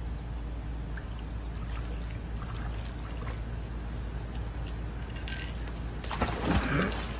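Dog falling into a swimming pool with a loud splash about six seconds in, over a steady low background hum.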